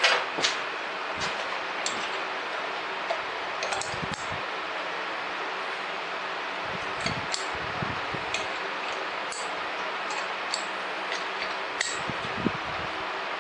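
Scattered light metallic clicks and clinks of a hex key and steel parts being handled while set screws are tightened on a bar clamp, over a steady background whir.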